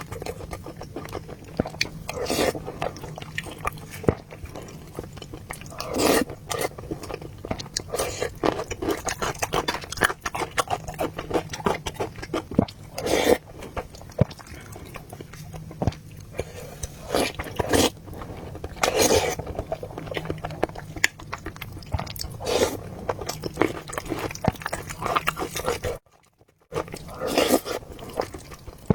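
Close-miked eating of braised pork knuckle and rice soup: steady chewing and biting with many small wet clicks, and louder mouthfuls every couple of seconds. The sound drops out briefly about three seconds before the end.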